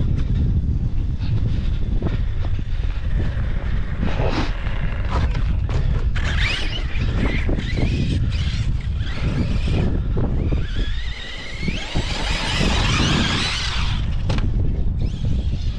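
Arrma Kraton 6S RC truck's brushless motor and drivetrain whining, rising in pitch as the truck speeds up about six seconds in and again from about eleven to fourteen seconds, over a constant low wind rumble on the microphone.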